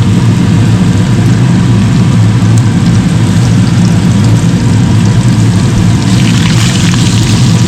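Frog legs frying in hot oil, with a steady sizzle that flares louder for a moment near the end, over a loud, steady low hum like a running motor.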